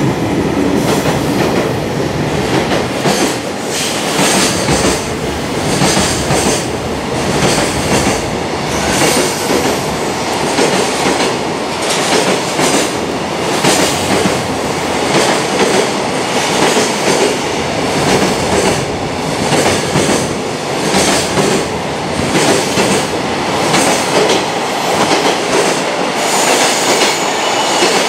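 Container wagons of a JR Freight train rolling past close by at speed: a steady loud rolling noise with a repeated clickety-clack as the wheel sets cross rail joints.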